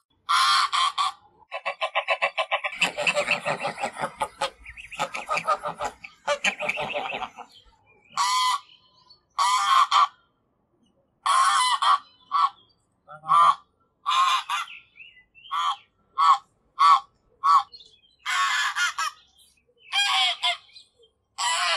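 Goose honking: a fast run of many quick honks in the first several seconds, then single loud honks about once a second with short gaps between them.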